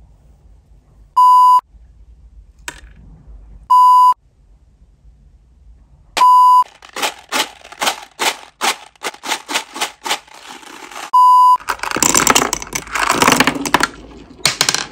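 A loud electronic beep of one steady pitch sounds four times, each under half a second. Between the beeps, small hard candies rattle and clatter in a cardboard box: gumballs tipped out into a hand, then candy-coated mini eggs shaken out in a quick rush.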